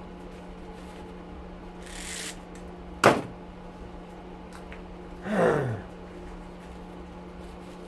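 Handling noises from stripping copper out of an air cleaner motor: a short hiss, then one sharp knock about three seconds in, and a falling creak about five and a half seconds in, over a steady low hum.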